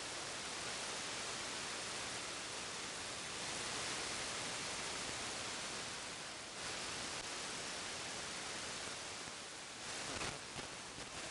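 CB radio receiver hissing with steady band static between transmissions. The hiss dips briefly about six and a half seconds in and flutters near the end.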